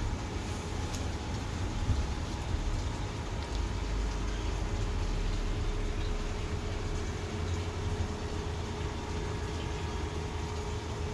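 Steady low background rumble with a faint constant hum and a few soft clicks.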